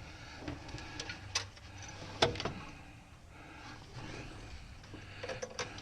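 A few scattered light metallic clicks and knocks as the shifter fork and metal parts are handled and worked into place in the transmission, the loudest a little over two seconds in and a few more near the end, over a low steady hum.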